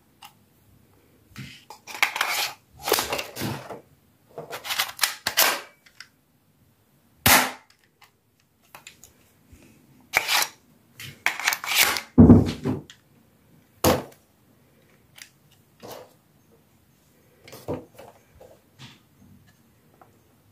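Airsoft Glock pistol being worked and fired: sharp plastic clacks and snaps, some single and some in rattling clusters, with a few faint clicks near the end.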